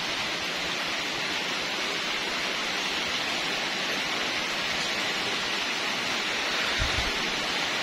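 Steady grinding hiss of a small handheld rotary tool reaming out the inside of a motorcycle intake manifold.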